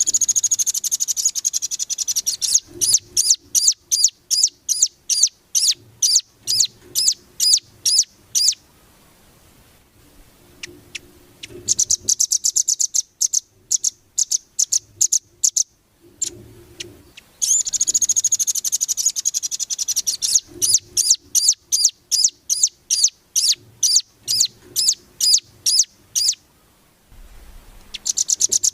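Velvet-fronted nuthatch (rambatan) calling in long series of high, sharp chips, about three to four a second, running into fast rattling trills at the start, around twelve seconds in and around eighteen seconds in. There is a quieter stretch of scattered notes about nine to twelve seconds in.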